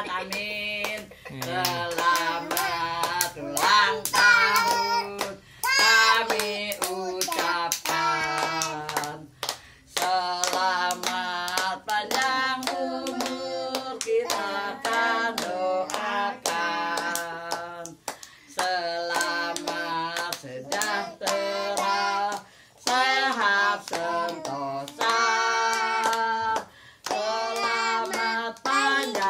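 A small group of voices, women and a child, singing a birthday song together while clapping along to the beat.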